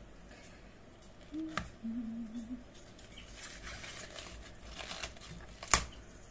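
Outer leaves being peeled off a head of white cabbage: crisp crinkling and tearing of the leaves, with a sharp snap near the end. A short low pitched sound comes about a second and a half in.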